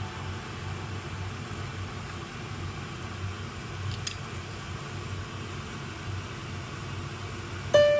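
Cream sauce simmering in a frying pan with spaghetti, shrimp and crab sticks: a steady, even hiss over a low hum, with one small click about four seconds in. Piano music comes in loudly just before the end.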